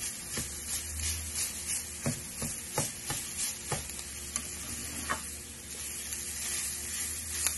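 Leftover rice frying in a nonstick pan with a steady sizzle, while a spatula stirs and turns it, making irregular scrapes and taps against the pan.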